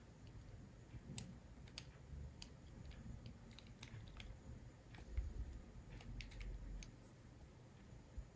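Faint, scattered clicks and taps of small repair tools and parts handled on a smartphone during disassembly, with a few soft low bumps around the middle.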